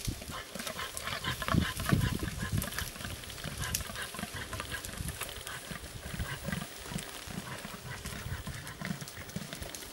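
Rutting caribou bull giving a series of short, low grunts, loudest about two seconds in, with scattered sharp clicks throughout.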